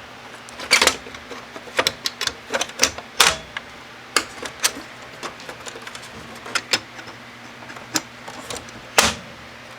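Top cover of a Sears Newport manual typewriter being lined up and pressed back into place: a string of irregular clicks and knocks, the loudest about a second in, about three seconds in and near the end.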